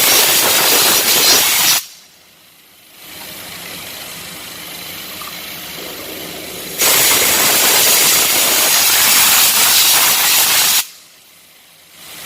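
Pressurized spray hissing in two long blasts during parts cleaning of fuel injectors, the second blast about twice as long as the first, each starting and stopping sharply. A quieter steady hiss runs between the blasts.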